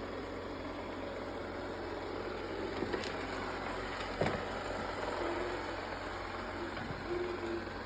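Linnberg Drive robot vacuum cleaner running with a steady motor and brush hum, with two short knocks about three and four seconds in.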